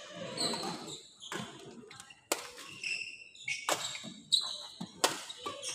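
Badminton rally: a shuttlecock struck back and forth by rackets, four sharp hits roughly a second apart. Between the hits come short high squeaks of court shoes on the floor, with some echo of the hall.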